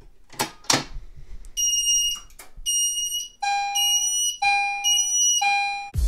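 A Simplex manual fire alarm pull station is pulled with two clunks. Then fire alarm signals sound in high-pitched pulses about once a second, joined about halfway by a lower horn tone that pulses with them.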